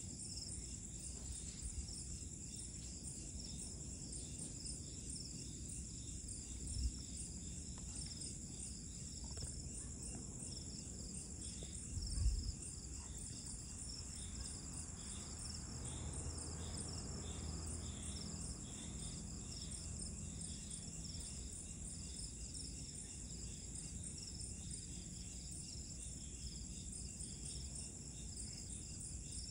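Night insects chirping in a steady, fast, evenly repeated high-pitched pulse over a low rumble. Two dull thumps come about seven and twelve seconds in.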